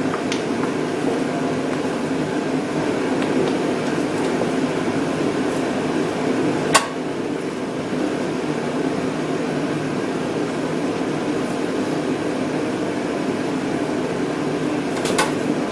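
Steady mechanical hum, like a fan or air conditioner running, with one sharp click about seven seconds in and a few light clicks near the end as screws are fitted back into the engine.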